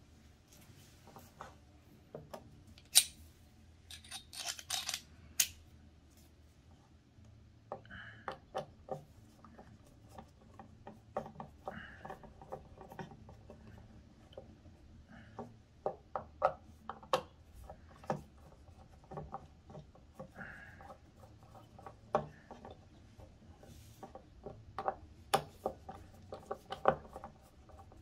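Screwdriver backing the small screws out of the Snoo's plastic motor housing: irregular small clicks and scrapes, with a few sharper taps from handling the parts.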